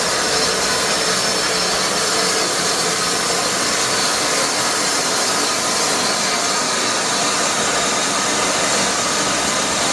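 Merchant Navy Class steam locomotive Clan Line standing at a platform with steam hissing out in a steady, loud rush.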